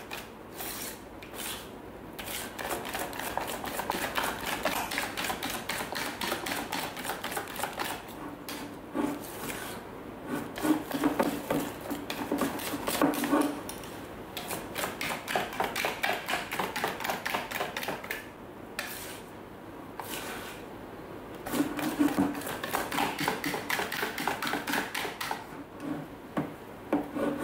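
Wire whisk beating thick, cold-set custard in a stainless steel bowl: fast, rhythmic clicking of the wires against the metal, stopping briefly a few times. The beating breaks up custard that set firm as it cooled into a smooth pouring consistency.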